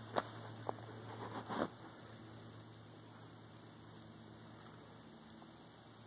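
Steady low hum with faint background noise. A few short clicks and rustles in the first two seconds, including one brief thin chirp-like tone.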